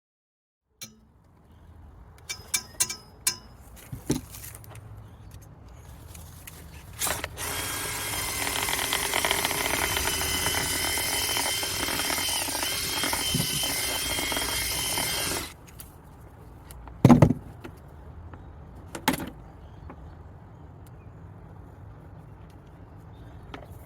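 Power drill, as used to spin a dryer-vent cleaning brush, running at speed for about eight seconds with a steady whine over a hiss, then cutting off suddenly. It is preceded by a few sharp clicks and followed by two short knocks.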